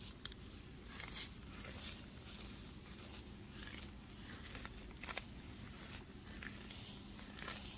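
Scattered light rustles and crackles of movement through grass weeds and perilla plants, a few sharper ones standing out, over a faint steady low hum.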